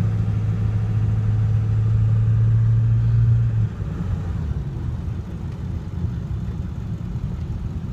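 Diesel pickup engine running while towing a loaded trailer, with a strong steady low hum that cuts off about three and a half seconds in; quieter engine and road rumble continue after.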